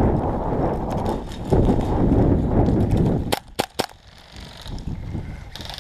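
Wind buffeting the microphone, then three sharp airsoft gun shots in quick succession a little over three seconds in.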